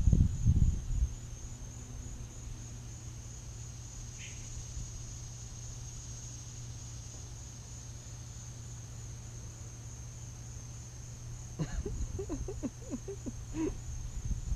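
Steady high-pitched chorus of summer insects, a constant faintly pulsing buzz. A low rumble sits under the first second, and a few knocks and short sounds come near the end.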